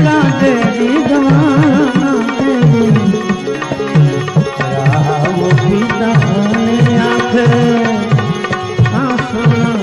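Instrumental interlude of a bhajan: tabla playing with swooping bass-drum strokes under a wavering melodic instrument line.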